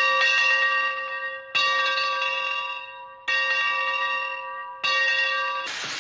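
A large bell struck four times at the same pitch, about every second and a half, each stroke ringing and fading; the fourth stroke is cut off near the end by a sudden hissing noise.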